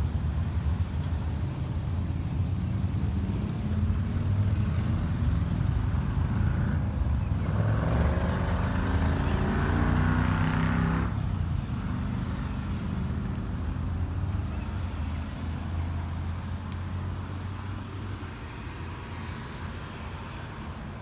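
Engine running with a steady low rumble. About seven seconds in, a louder, higher engine sound joins it for around four seconds, then the whole sound slowly fades.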